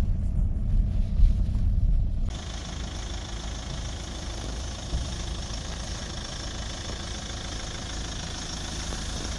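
Car interior noise while driving on a wet, slushy road: a low engine and tyre rumble. About two seconds in it cuts to a quieter, steady engine idle with a hiss over it, heard through the open driver's door, with one light knock near the middle.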